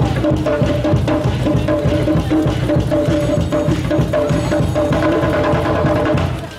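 Polynesian dance music: fast, dense drumming with a steady held tone above it, cutting off suddenly near the end.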